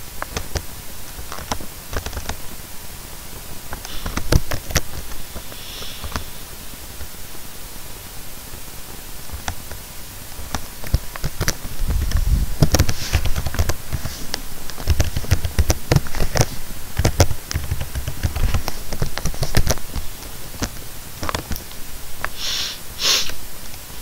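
Typing on a computer keyboard: irregular key clicks, some with heavier low thuds, over a steady background hiss.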